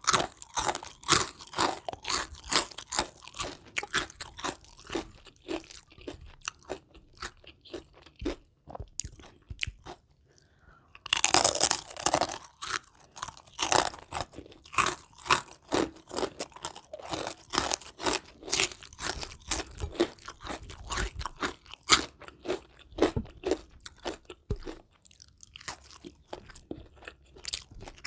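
Close-miked chewing of crispy battered deep-fried chicken: fast, irregular crunches, with a short lull and then a louder burst of crunching about eleven seconds in. The batter is still crunchy.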